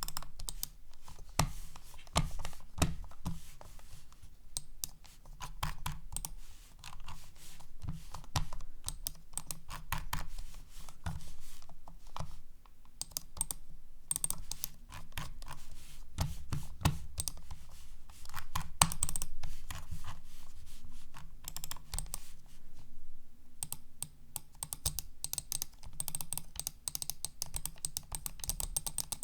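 Logitech B100 mouse: a rapid, irregular run of small plastic clicks from its buttons and scroll wheel as it is worked, over a low rubbing of the mouse moving on the surface.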